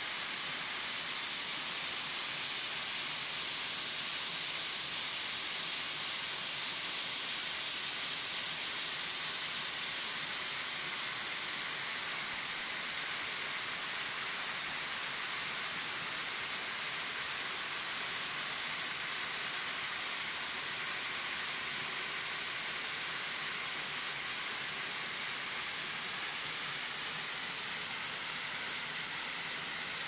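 Waterfall pouring over rock: a steady rushing hiss of falling water that does not change.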